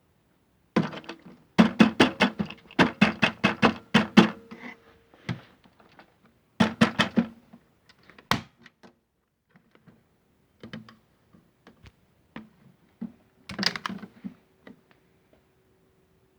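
A series of hollow knocks and rattles from the small Miele W1 toy washing machine, in quick runs of several knocks a second with gaps between and a brief ringing after the hardest ones; its motor is not running.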